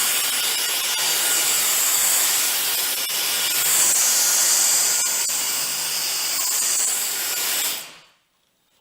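Dyson DC44 cordless stick vacuum running with a steady, loud high-pitched whine and rush of air, with occasional ticks as rice grains are sucked up off a wooden floor. It cuts off suddenly about eight seconds in.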